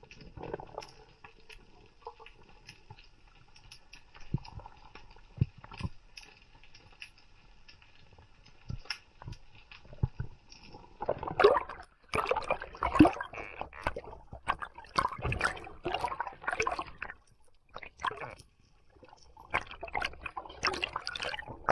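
Underwater ambience around a diver's camera: a quiet stretch with a few faint clicks, then from about halfway in loud, irregular sloshing and gurgling of water as the diver nears the surface.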